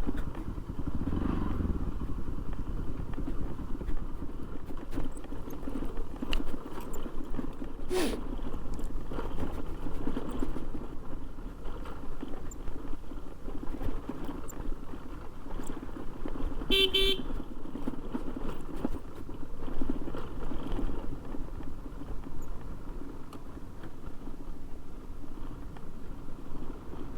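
Motorcycle engine running steadily while riding over a dirt track, with road and wind noise. A sharp knock sounds about eight seconds in, and a short horn honk about seventeen seconds in.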